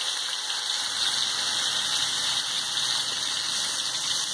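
Marinated chicken legs deep-frying in hot oil in a pan: a steady, dense sizzle of bubbling oil.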